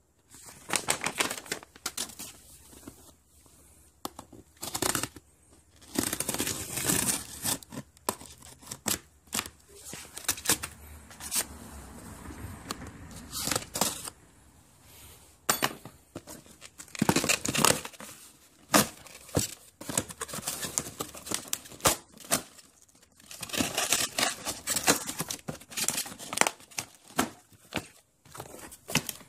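Cardboard shipping box being opened and handled by hand: tape and cardboard tearing and paper crinkling in irregular bursts.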